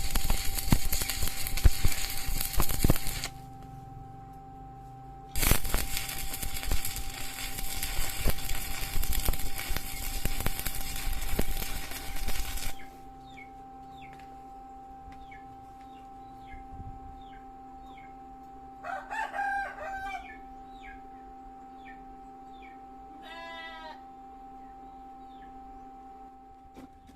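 Electric arc welding, the arc crackling and sputtering in two long runs: one at the start and one from about five seconds in to about thirteen seconds, with the welder stopping in between. After the second run stops, a steady low hum remains, and two short animal calls sound in the background.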